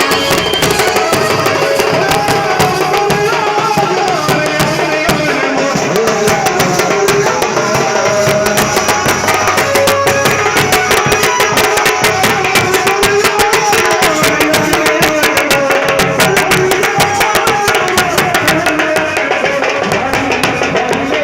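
Indian band music in Gujarati style: fast, dense drumming under a wavering melody line.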